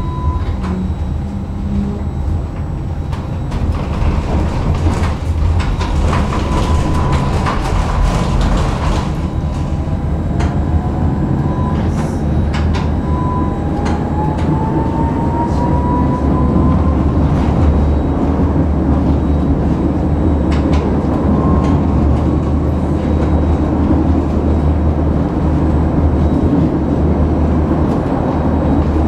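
Tram running on its rails, heard from inside the passenger car: a steady low rumble with scattered clicks and knocks from the wheels on the track. Partway through, a thin whine rises slowly in pitch over several seconds.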